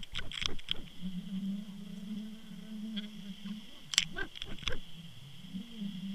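Underwater sound picked up by a camera in its housing on a fishing line: a steady low hum, broken by a flurry of sharp clicks and knocks at the start and another about four seconds in.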